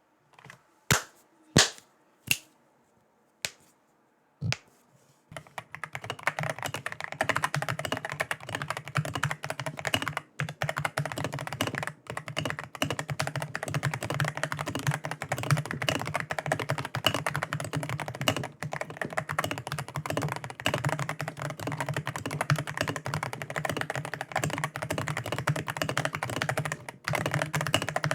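Akko PC75B Plus 75% mechanical keyboard, fitted with a few sound mods, being typed on. It starts with about five single key presses a second or so apart, then goes into continuous fast typing with only brief pauses.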